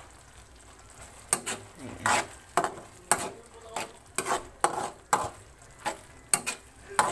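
A metal spoon stirring thick, saucy ground-pork giniling in a metal pan: a string of quick scraping strokes and clinks against the pan, about three a second, starting about a second in.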